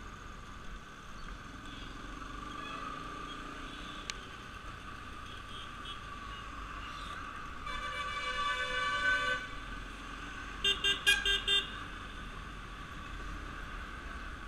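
Vehicle horn honking over steady motorcycle and traffic noise: one long honk about eight seconds in, then a quick run of about five short toots a couple of seconds later.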